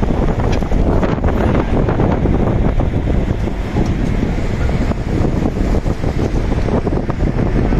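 Heavy wind buffeting the microphone, a loud, steady rumble.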